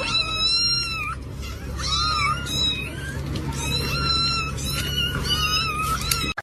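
A cat meowing repeatedly: about five drawn-out, high-pitched meows over a steady low hum, cut off abruptly at the end.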